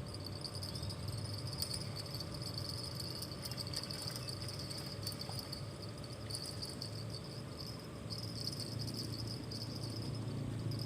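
Outdoor insect chorus: a steady, high-pitched chirring with a fast pulsing texture, over a low steady hum.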